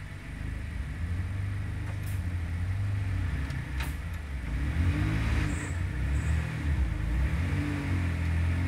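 Radical RXC race car's engine idling, with a sharp clunk about four seconds in as first gear is selected. It then takes small rises in revs as the car starts to roll away.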